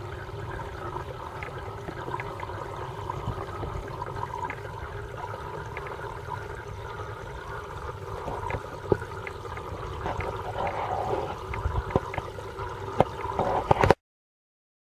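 Steady water trickling and bubbling in an aquarium, with scattered clicks and knocks that grow louder near the end before the sound cuts off suddenly.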